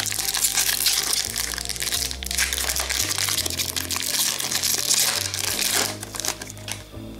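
Plastic hockey card pack wrapper crinkling and tearing as it is ripped open and the cards are pulled out, easing off about six seconds in, over background music with a steady bass line.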